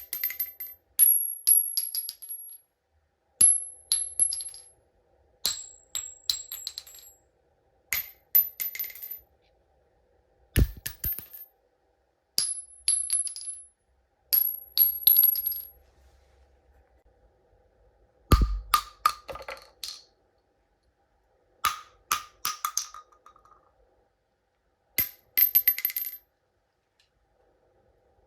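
Loose ammunition cartridges dropped onto a hard floor, one after another: each drop is a clatter of bouncing metallic clicks with a bright, high ring. About eleven drops come roughly every two seconds, with a longer pause about two thirds of the way through; a few land with a heavier thud.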